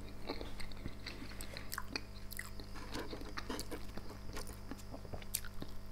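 A person chewing a mouthful of boiled meat dumplings close to the microphone: soft, irregular chewing clicks and mouth noises, over a steady low electrical hum.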